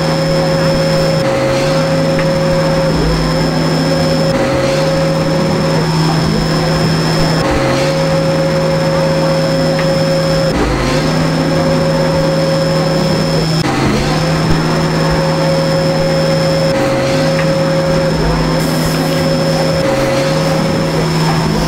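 Simulated CNC milling machine sound from virtual-machine software running a program in auto mode: a steady machine hum with a high whine, briefly dipping about every three seconds as the sound loops.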